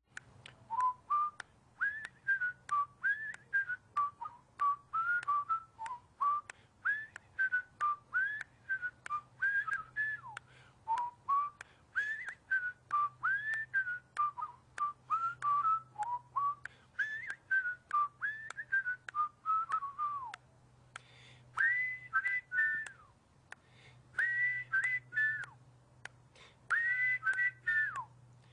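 A tune whistled in short notes that slide up and down, with sharp clicks between the notes. Near the end the phrases sit higher and come in quicker runs.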